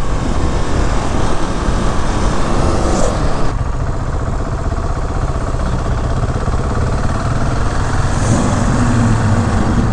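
KTM 690 SMC R's single-cylinder engine running under the rider, with wind noise on the microphone that eases off about three and a half seconds in.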